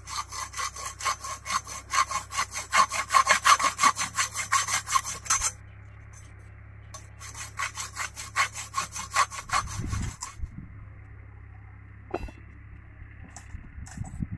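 Hacksaw cutting a thin metal rod, fast, even rasping strokes about five a second. It runs for about five seconds, pauses, runs again for about three seconds, then stops.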